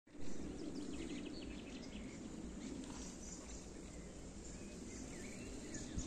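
Garden ambience: a steady low background noise with small birds chirping in short scattered bursts, a quick run of chirps about a second in and a few more near the end.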